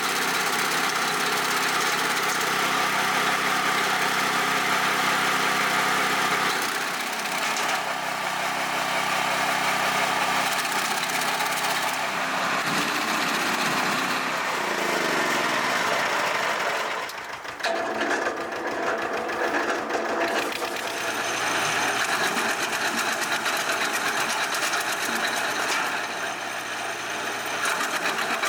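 Wood chipper running: a steady engine drone with a hiss above it. The pitch sags for a couple of seconds around the middle and the level dips briefly just after, then it runs steady again.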